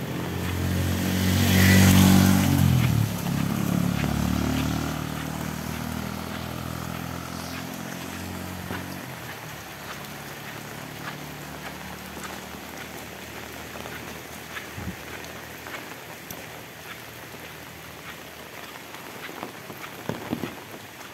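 A motor vehicle's engine passes close by, loudest about two seconds in and fading away by about nine seconds, over steady heavy rain falling on a road and foliage. A few light knocks come near the end.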